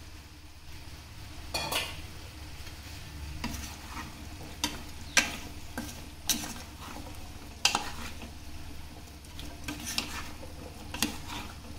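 Plastic spatula stirring cubed potatoes in a nonstick pot, with irregular scrapes and knocks against the pot about once a second over a low steady hum.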